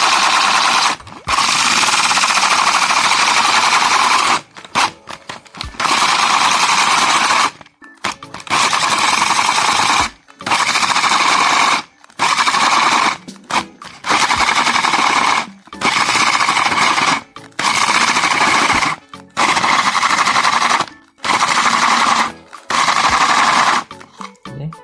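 Electric hand drill turning a two-blade adjustable circle cutter that scrapes a circular groove into a wooden board. The drill is run in about a dozen short bursts of one to three seconds, stopping briefly between them. The two blades are set at unequal radii, so each cuts its own groove.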